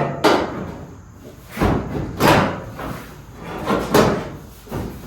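Sheet-metal car body panels being banged and knocked into place while test-fitting: about six heavy thumps and slams spread through a few seconds, each with a short ringing tail.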